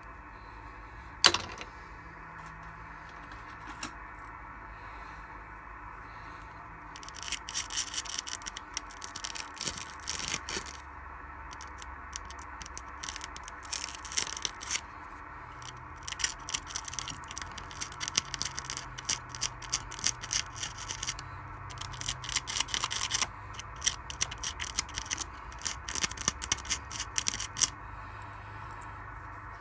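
Irregular scraping and crackling from hand work on a Samsung TV power supply board, in clusters of quick scratchy clicks, over a steady low hum. A single sharp click comes about a second in.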